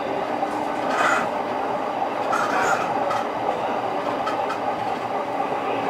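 JR E231-series electric train running, heard from inside the car: a steady rolling noise with scattered clicks of the wheels over rail joints.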